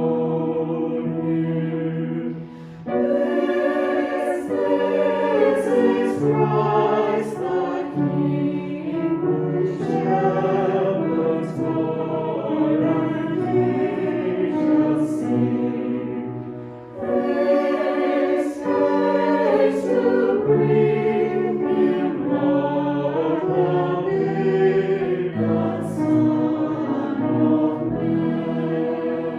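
Choir singing in several parts, with held notes and short breaks between phrases at about three seconds and again at about seventeen seconds.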